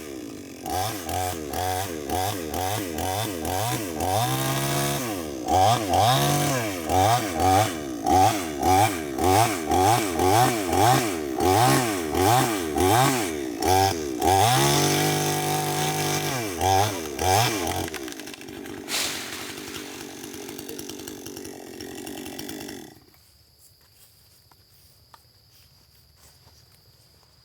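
Chainsaw cutting through a tree, its engine revving up and falling back over and over, about once a second. It then runs at a steadier lower speed and stops about three-quarters of the way through, leaving a faint steady insect chirr.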